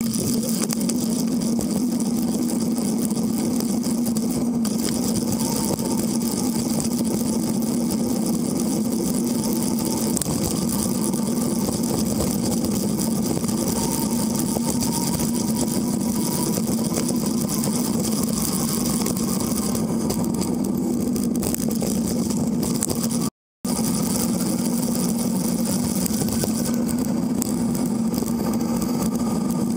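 Steady riding noise from a camera mounted on a moving bicycle: tyre rolling on the path and wind on the microphone, a constant low hum. The sound drops out for a moment about three-quarters of the way through.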